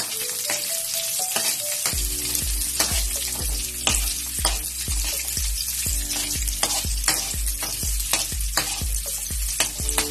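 Onion and ginger sizzling in hot oil in a wok, with a metal spatula scraping and knocking against the pan as they are stirred. Background music with a steady low beat comes in about two seconds in.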